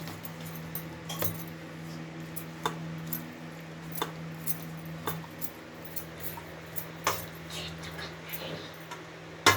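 Ladle clinking and scraping against the cooking vessel in irregular taps while tamarind pulp is stirred through cooked rice.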